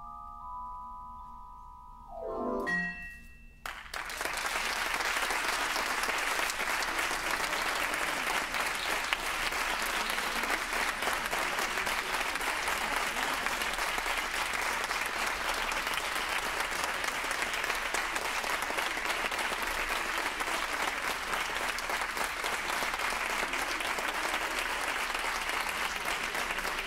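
The last notes of a marimba piece: a held chord, then a quick run of notes falling to the low end. The audience starts applauding about four seconds in and keeps up steady clapping through the rest.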